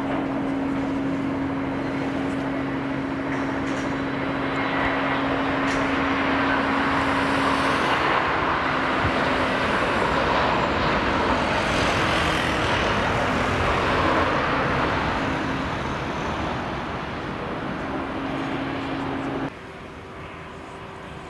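Twin-engine Airbus A320-family airliner landing and rolling out: a steady engine hum with a broad rush that swells in the middle as the engines spool up for reverse thrust, then eases as the jet slows. The level drops abruptly near the end.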